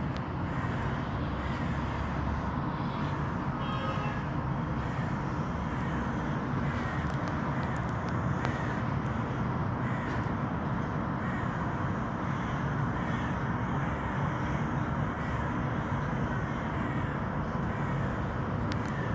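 Kittens mewing over and over: short, high calls repeating throughout, over a steady background hiss.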